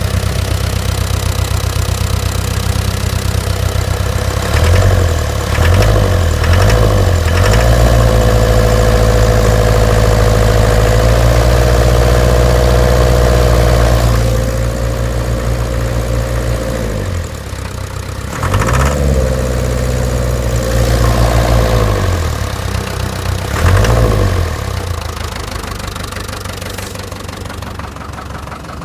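Land Rover Series III diesel engine running with a knock, blipped a few times, held at raised revs for several seconds, then revved twice more before settling back to idle. The knock remains after a new fuel pump, filter and injector pipes, and its cause is unknown to the owner.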